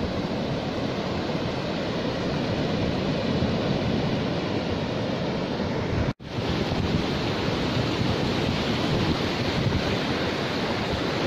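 Ocean surf breaking and washing up a sandy beach, a steady rushing noise with wind buffeting the microphone. The sound cuts out for a split second about six seconds in, then carries on.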